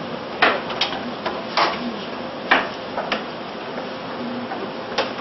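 A metal ladle knocking and scraping against a stainless-steel saucepan of diced pumpkin as it is stirred, giving about half a dozen sharp clinks at uneven intervals over a steady hiss.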